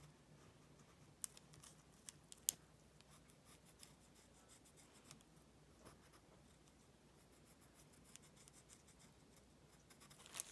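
Faint pencil scratching on paper while tracing around a small cut piece, with a few sharp light ticks, the loudest about two and a half seconds in, over a low steady hum.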